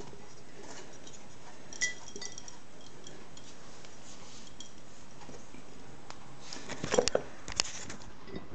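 Glass jar clinking and knocking: one light clink about two seconds in, then a cluster of sharper glassy clinks around seven seconds in.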